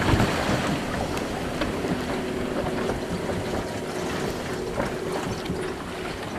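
Powerboat running at speed, its Yanmar diesel engine making a steady drone that slowly fades as the boat pulls away, with the rush of its wake.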